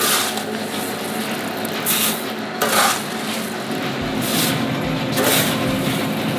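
Roasted coffee beans being scooped off a concrete floor with a metal tray and tipped into a woven plastic sack: several short swishes about a second apart over a steady hiss. A low hum joins about four seconds in.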